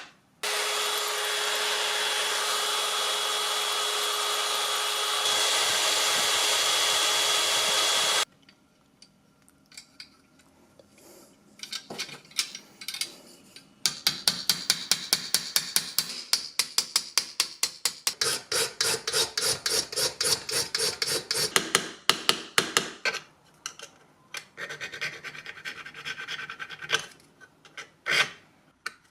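A drill runs steadily for about eight seconds, boring a hole through the brass plate. After a short pause with a few light clicks, a hand tool scrapes quick back-and-forth strokes on the metal, about four a second, in long runs.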